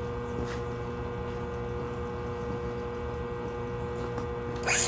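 An arc welder humming steadily while idle, with its cooling fan running. Near the end a louder, hissy noise cuts in.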